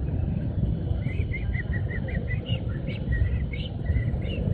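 Low rumble of a motor scooter's engine and the surrounding motorbike traffic crawling through a jam. From about a second in, a run of short, high chirps repeats a few times a second over it.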